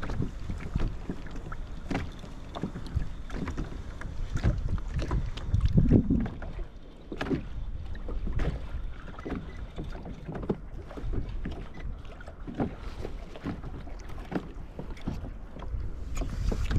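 Kayak moving on the water: irregular small splashes and knocks against the hull, with wind rumbling on the microphone.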